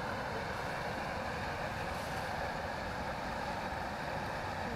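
Steady outdoor background noise, a low rumble with a hiss, with no distinct events.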